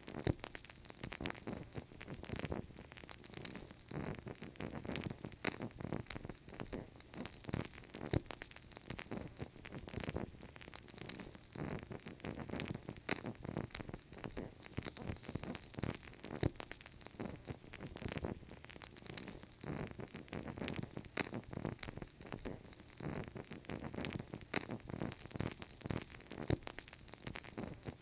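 Wood fire crackling in a fireplace: a dense, steady run of small pops and snaps.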